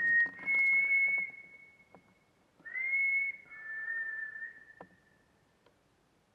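A person whistling a short sequence of steady, held notes: a brief note and a longer higher one, a pause, then a high note stepping down to a lower held note. It is whistled for a reply to copy. A couple of faint ticks fall between the notes.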